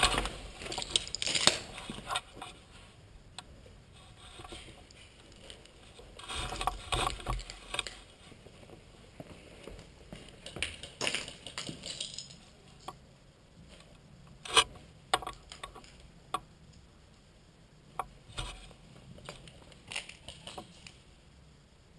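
Footsteps crunching and scuffing on concrete rubble and gravel in short bursts as someone moves, with a few isolated sharp clicks in the second half.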